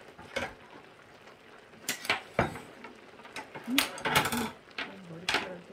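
Ceramic dishes, a small sauce bowl and metal spoon and chopsticks clinking and knocking on a tabletop as tableware is set down, in a handful of scattered sharp clinks with a quick cluster about four seconds in.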